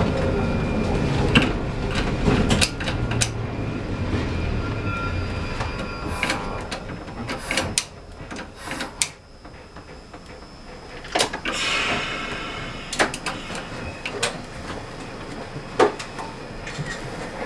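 Trieste–Opicina tramcar heard from inside, rumbling along the rails with clicks over the rail joints, then slowing so that the running noise fades about halfway through. What remains is scattered clicks and knocks, with a brief high squeal near the two-thirds mark.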